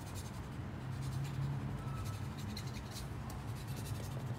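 Faint scratching with scattered light clicks over a low steady hum.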